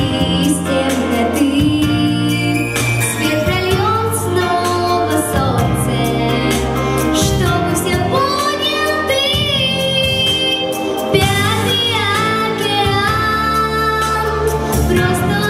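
A girl singing a song into a handheld microphone over instrumental accompaniment with a steady bass and beat. She holds some notes with vibrato, most clearly about nine seconds in.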